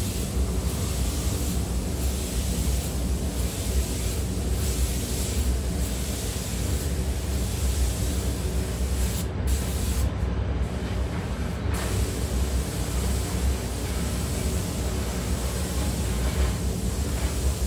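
Compressed-air spray gun hissing in short repeated passes, about one a second, over a steady low rumble. It stops for a couple of seconds midway, then hisses again.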